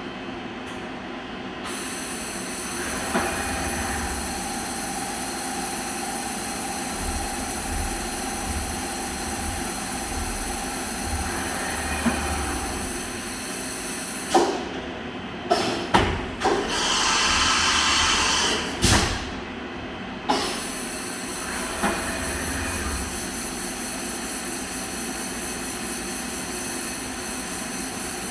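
Fadal CNC vertical machining center running: a steady mechanical whine with several high tones held throughout. About halfway through comes a cluster of sharp clunks, with a hiss of air lasting a second or so among them.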